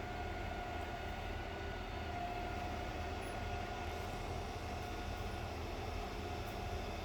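Heavy machinery engine running steadily at an even pitch: a low hum with a faint steady whine over it.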